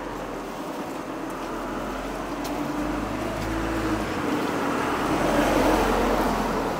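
A car driving past on the street, growing louder to a peak about five to six seconds in, then beginning to fade.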